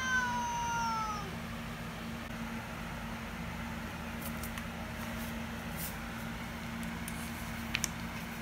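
Domestic cat giving a single drawn-out meow that falls slightly in pitch, over the first second or so. After it there is only a steady low hum, with a couple of faint ticks near the end.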